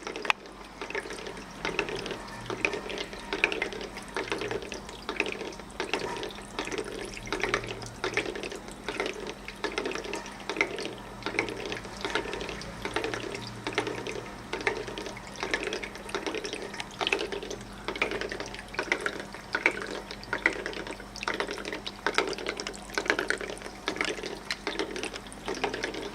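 Small decorative tabletop water fountain running: water trickling and splashing down its tiers, gurgling in a regular pulse about every two-thirds of a second, with a faint steady low hum underneath.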